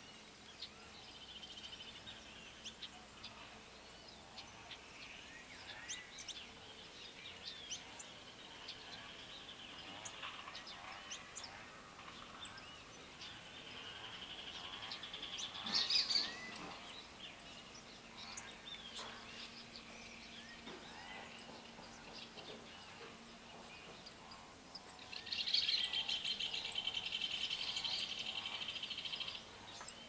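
Small birds of a ground-feeding flock chirping and calling, with a brief louder burst about halfway. Near the end a loud rapid trill runs for about four seconds and then stops.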